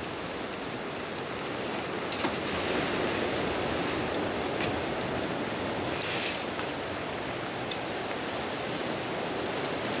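Metal chopsticks clinking against a stainless steel cup a few separate times, over a steady hiss.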